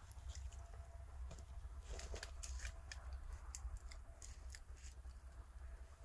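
Dry twigs crackling and snapping in a quick, irregular scatter, thickest in the middle seconds.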